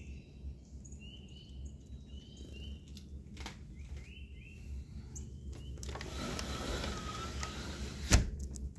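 A small songbird chirps a few short notes. Later comes a scraping, rustling noise with a faint squeak, ending in a sharp knock near the end.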